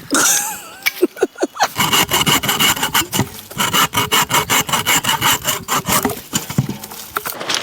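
Rapid back-and-forth sawing strokes on bamboo, several strokes a second, starting about two seconds in.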